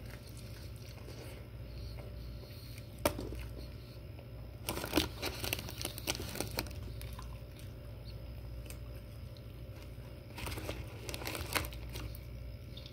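Close-up eating sounds: chewing a breakfast sandwich beside a crumpled paper wrapper, with a sharp click about three seconds in and two spells of crackly crinkling, about five seconds in and again about eleven seconds in, over a low steady hum.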